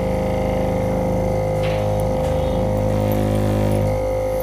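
Steady droning hum from an LCD glass separator machine's vacuum pump, which holds the phone screen down on the heated plate while its glass is cut off with wire. The low part of the hum dips briefly about two seconds in.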